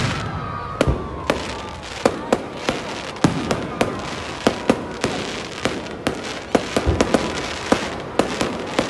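Fireworks display: aerial shells bursting overhead in quick, irregular succession, two or three sharp bangs a second, with a continuous crackle between them.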